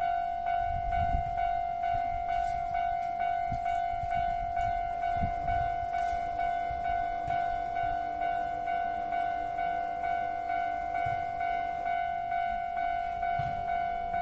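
Japanese railway level crossing warning bell ringing steadily, its repeated high clanging pulses at an even pace, over a low uneven rumble.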